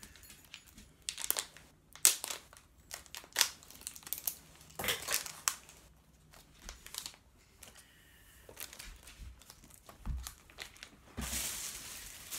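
Sports card pack wrapper crinkling and tearing as it is worked open by hand: irregular crackles and rips, with a longer stretch of rustling near the end.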